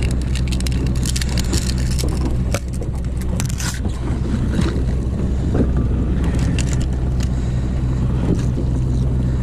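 A Honda outboard motor runs steadily at slow trolling speed, a low even drone. Over about the first four seconds it is joined by a run of sharp clicks and rattles from fishing gear being handled as a dummy flasher is clipped on and lowered on the downrigger.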